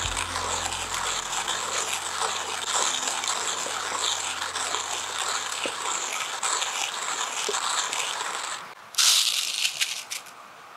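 Hand coffee grinder being cranked, the beans crushing in a steady gritty rattle. The grinding stops near the end and gives way to a short, louder rattle as the grounds are shaken out of the grinder into a paper filter.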